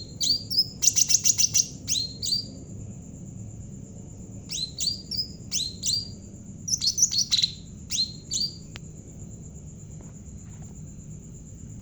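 Cucak ranting jawa songbird singing vigorously: bursts of rapid, sharp high chirps, each note dropping quickly in pitch. There is a dense run in the first two seconds and shorter bursts later. The singing stops about nine seconds in.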